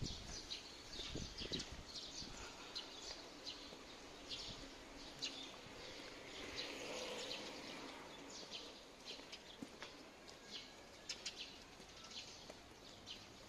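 Birds chirping faintly in the trees: short, high chirps scattered irregularly over a soft outdoor hiss that swells and fades around the middle.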